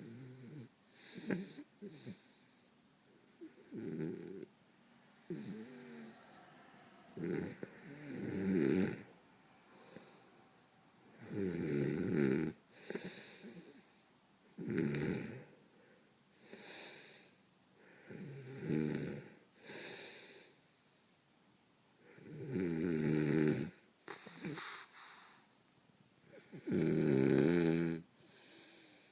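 A man snoring heavily, a rasping pitched snore every two to four seconds.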